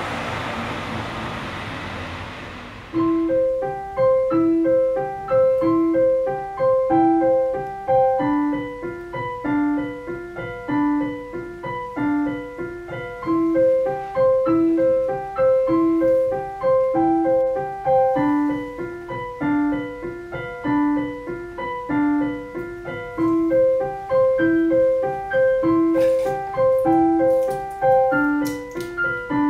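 Solo piano background music playing a gentle, steadily repeating figure. It comes in about three seconds in, after a rushing noise that fades out.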